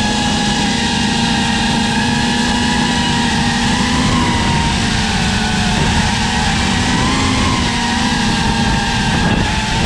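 Motors and propellers of a 5-inch FPV quadcopter with T-Motor Pacer 1950KV motors on 6S, whining at a fairly steady pitch that wavers slightly with throttle.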